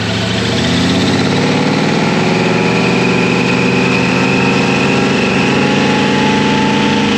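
Supercharged 454 big-block V8 with a 6-71 blower, brought up off idle within the first second and held at a steady raised speed, with a thin steady high whine over the engine note. It is being held there while the tune is checked on the air-fuel ratio readout.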